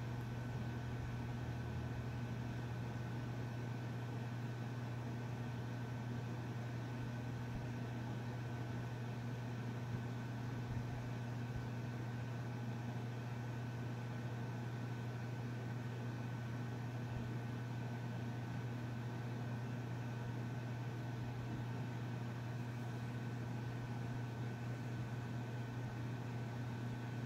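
A steady low hum with a thin high tone over even hiss, unchanging throughout, with two faint knocks about ten seconds in.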